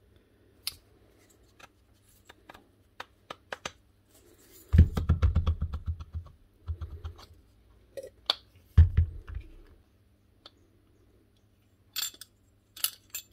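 Clicks, clinks and scrapes of small metal parts being handled during reassembly of a rotary hammer, with two short rattling bursts about five and nine seconds in.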